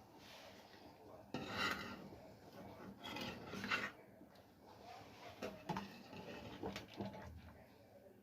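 A utensil scraping and rubbing in a cooking pot of soup, twice, then a few light knocks against the pot.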